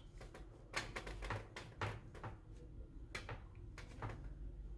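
Faint, irregular small clicks and light scrapes from hands handling a PL-259 coaxial connector and cable while its inner part is cleaned with alcohol.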